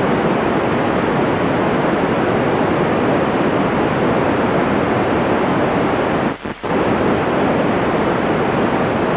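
FM radio receiver hiss on the 145 MHz amateur band: loud, steady static from a weak or absent signal, with two brief drops about six and a half seconds in.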